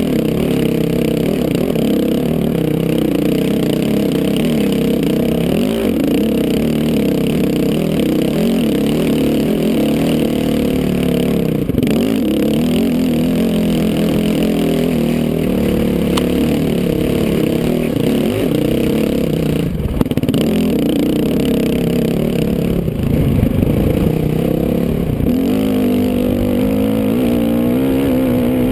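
Honda dirt bike engine running hard on a dirt trail, its pitch rising and falling as the throttle is opened and closed. Clatter from the rough ground runs through it, with a couple of jolts about two-thirds of the way in.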